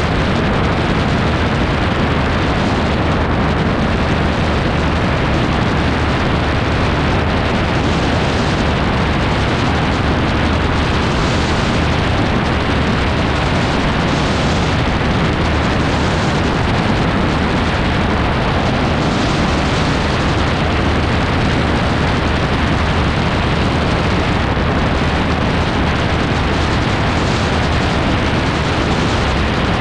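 Steady in-flight noise of an AutoGyro MTOfree open-cockpit gyroplane: the engine and pusher propeller running evenly under heavy wind rushing over the microphone.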